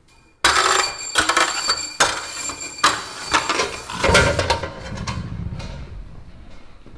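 A homemade chain-reaction contraption running: a quick succession of knocks, clatters and metallic clinks from objects toppling and falling onto a metal sign and a wooden floor. It starts abruptly about half a second in, with the sharpest hits over the next few seconds, then thins into lighter rattling and a low rumble of rolling as it dies away.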